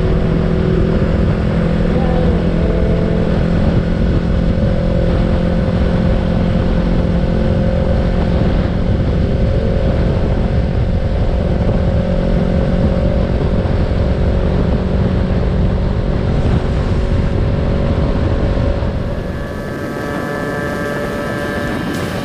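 Yamaha YZF-R3's parallel-twin engine running steadily at cruising speed, with heavy wind rush on the microphone. Near the end the low rumble eases a little.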